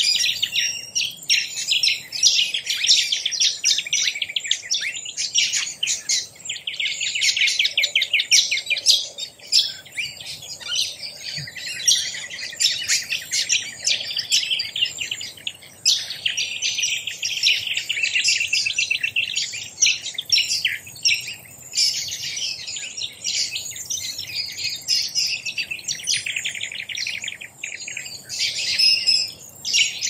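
A chorus of many birds chirping and twittering at once, an unbroken stream of quick, high calls.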